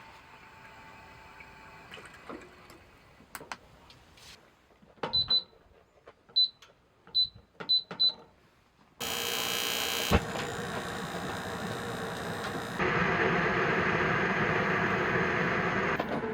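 Five short high electronic beeps with small clicks, like buttons pressed on an appliance, then a steady hiss that starts suddenly and gets louder near the end.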